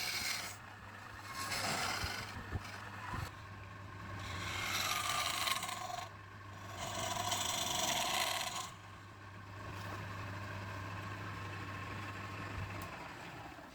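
Wood lathe motor running with a steady hum while a turning tool scrapes the spinning wood in three long passes of a few seconds each. The motor hum stops near the end.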